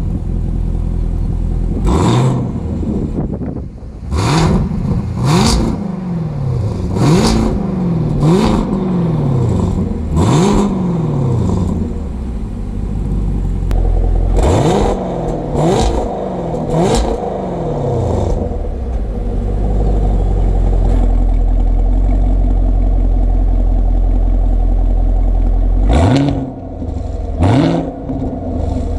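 2020 Chevrolet Camaro SS's 6.2-litre LT1 pushrod V8, heard from the rear through its active exhaust's quad tailpipes. It idles and is blipped repeatedly, each rev jumping up in pitch and falling back to idle. There is a string of blips, a long steady idle stretch, then three more quick blips near the end.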